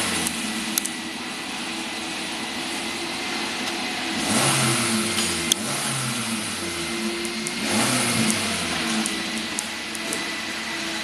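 A car engine running steadily, swelling as if revved about every four seconds. A few sharp clicks sound over it.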